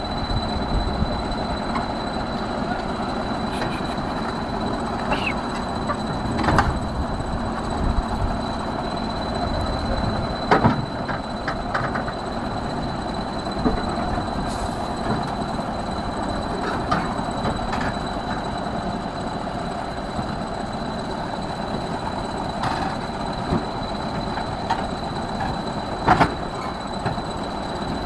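Steady heavy mechanical rumble with several sharp metallic clanks scattered through it, the loudest about a third of the way in and near the end, over a constant thin high whine.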